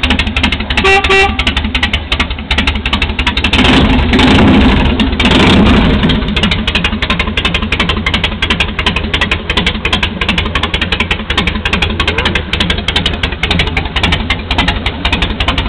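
Harley-Davidson V-twin motorcycle engine running with a steady pulsing beat. It is blipped louder twice between about four and six seconds in. A short horn beep sounds about a second in.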